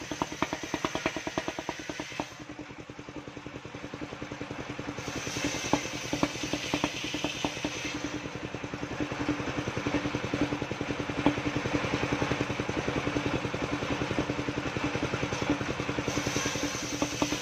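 Engine of a truck-mounted circular sawmill running steadily with a fast, even pulse while the large circular blade rips waru-wood boards. The cutting hiss eases off about two seconds in and picks up again about five seconds in, as boards are fed through.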